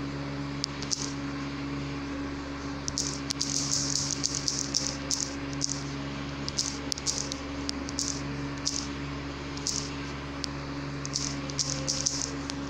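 Fingertips tapping and swiping on a phone's touchscreen keyboard: short, soft clicks in quick clusters, over a steady low hum.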